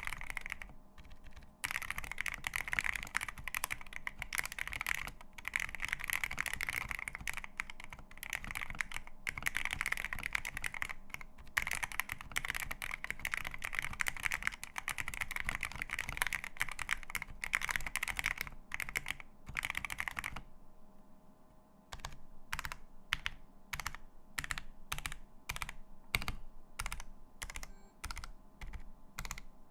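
Feker IK75 Pro mechanical keyboard with lubed Akko CS Jelly Black linear switches, a polycarbonate plate, a plastic case and PBT keycaps, typed on quickly for about twenty seconds. After a short pause, single keys are pressed one at a time, about two a second.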